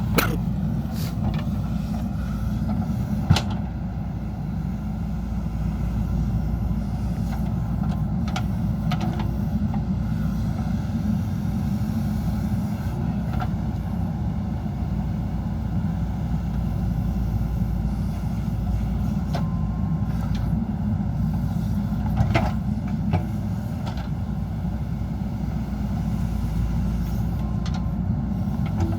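JCB 3DX backhoe loader's diesel engine running steadily at work, with a few sharp knocks, the loudest about three seconds in and a pair around twenty-two seconds.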